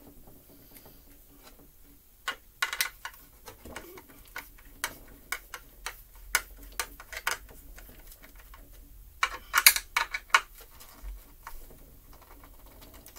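Screwdriver clicking and scraping against the plastic housing of a McCulloch Mini Mac 30 chainsaw as it is taken apart. Scattered sharp clicks come in quick clusters a little after two seconds in and again around ten seconds in.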